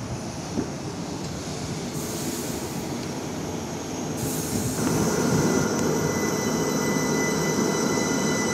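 Southern Class 377 Electrostar electric multiple unit pulling out of the platform. Its running noise grows louder about five seconds in as it gets moving, with a steady high whine over the rumble.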